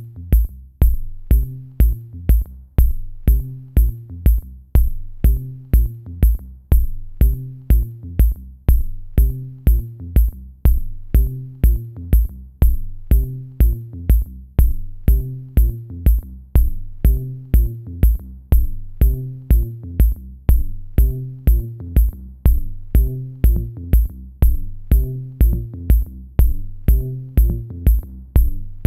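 Background electronic music with a steady drum-machine beat, about two beats a second, over a repeating bass line and chords.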